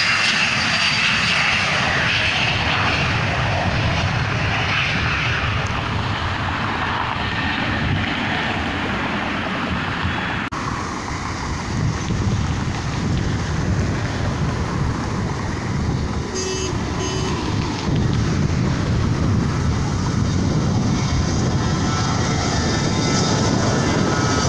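Jet aircraft engines running at the airport: a steady roar with a high whine that falls in pitch at the start. The sound breaks off abruptly about ten seconds in and carries on, and the whine rises again near the end.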